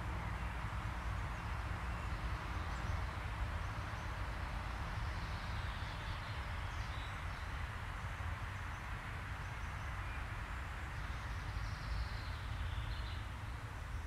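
Woodland ambience: a steady low rumble and hiss, with faint, distant bird calls now and then.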